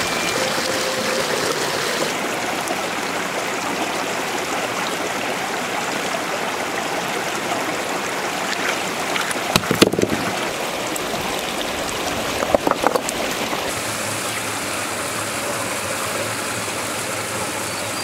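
Shallow rocky stream running steadily over stones. A couple of brief splashes stand out, about ten and thirteen seconds in, as a rubber wading boot moves through the water.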